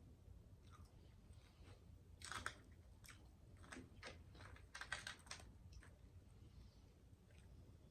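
Faint close-up eating sounds: chewing on fried croaker fish, with scattered small mouth clicks and a few louder crunchy clicks about two and a half and five seconds in.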